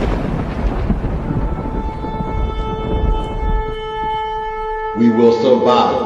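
A shofar blown in one long, steady note over a deep rumble that fades away. About five seconds in, the note gives way to a song with a singing voice.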